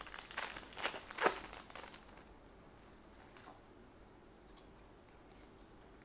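Trading-card booster pack wrapper being torn open, crinkling for about the first two seconds. After that, only a few faint soft ticks as the cards are flipped through in the hands.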